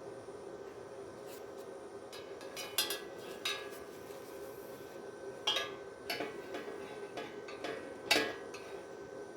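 Metal clinking and clanking, about six separate knocks of steel pieces being handled or tapped, the loudest about eight seconds in, over a steady hum.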